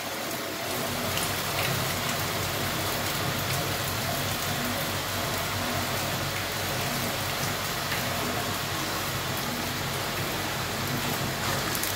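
Steady spattering and splashing of water jetting out from under the cap of a pop-up rainwater filter: with the inflow above the filter's rated volume, the pop-up is lifting and water escapes past it.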